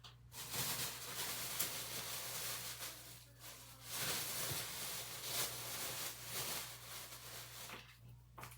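Got2b aerosol hairspray sprayed onto a lace wig in two long bursts of hiss, each about three seconds, with a short break between them.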